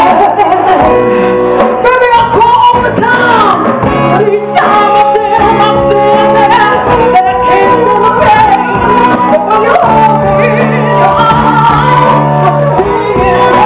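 Live blues band playing: a woman singing and a harmonica playing long, bending notes over guitar and drums.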